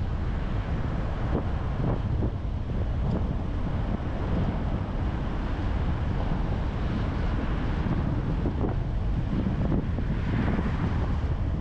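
Steady road and wind noise from a moving car, a low rumble with wind buffeting the microphone.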